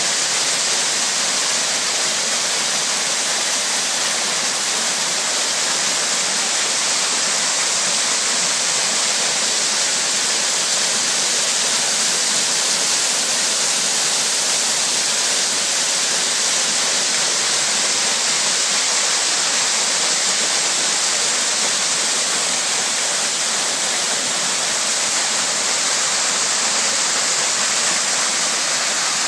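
Ornamental waterfalls pouring down a rock wall into a pond: a steady, even rush and hiss of falling water.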